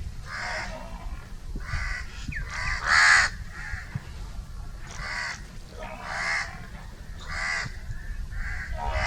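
Crow cawing: a series of harsh caws about one a second, the loudest about three seconds in, over a low rumble.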